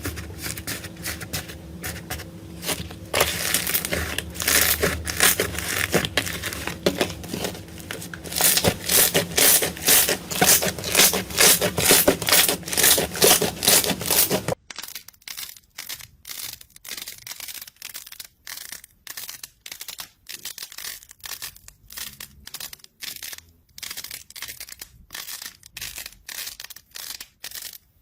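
Slime being squeezed and stretched by hand, with a dense run of crackling and popping. About halfway through the sound cuts to a quieter clip of sharp, separate clicky pops.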